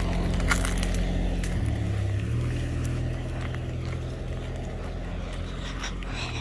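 USPS mail truck engine running at low speed, its note shifting about two seconds in as it pulls away from the curb, then steady and slowly fading as it drives off.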